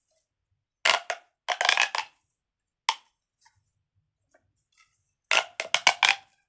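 Plastic pop tubes being stretched and squashed, their corrugated ridges snapping in rapid runs of pops. There are two spurts about a second in, a single short one near three seconds, and a longer, denser run near the end.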